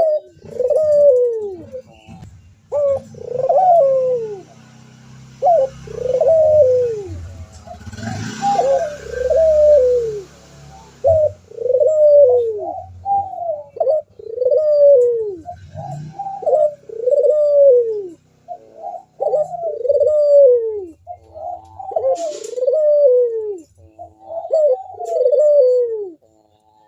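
Ringneck dove (Indonesian local puter) cooing steadily, one rising-and-falling coo about every second, some doubled.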